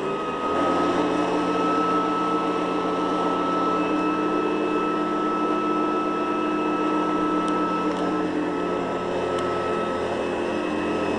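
Hoover Guardsman upright vacuum cleaner running steadily, its motor giving a constant high whine over a steady rush of air.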